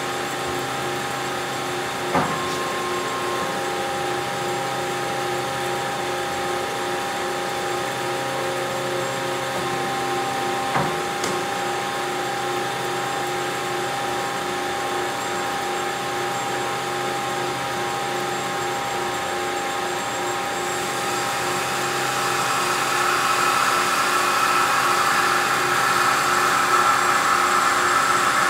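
Hyd-Mech S20A automatic bandsaw running, a steady motor hum with the blade driving, with two sharp clicks about 2 s and 11 s in. About three-quarters of the way through it grows louder and hissier as the saw head comes down toward the cut.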